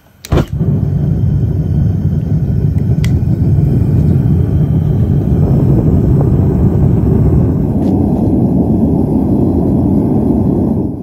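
Propane furnace burner lighting with a sharp pop, then running with a loud, steady roar that cuts off suddenly near the end.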